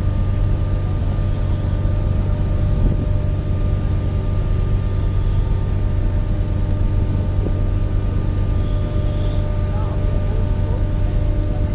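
A ferry's engines and machinery running steadily during docking: a loud low hum with several constant tones above it, and a rush of noise from wind and sea.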